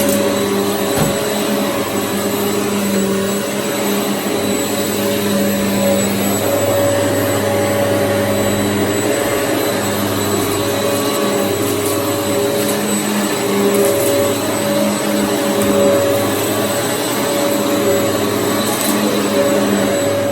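Hoover EliteSwivel upright vacuum cleaner running steadily while vacuuming, a constant motor whine with a few light ticks.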